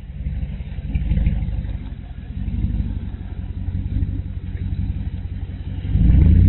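Dodge police Charger's Hemi V8 running, partially rebuilt after a down lifter and bad camshaft; it gets louder about six seconds in as the revs rise.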